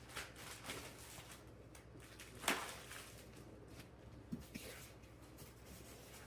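Faint rustling and handling of packaging and parts during an unboxing, with small scattered clicks and a sharper crackle about two and a half seconds in.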